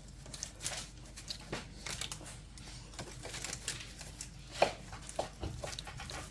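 Knife cutting and scraping through crumble bars in a baking pan: a scattering of small scrapes and clicks, with one sharper clack about two-thirds of the way through.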